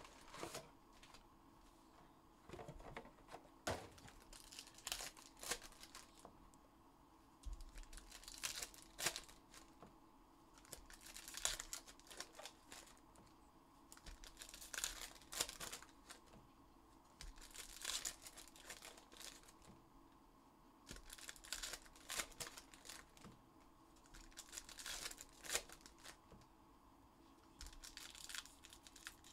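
Plastic-wrapped trading-card packs being torn open and the wrappers crinkled by hand, in faint irregular bursts every few seconds.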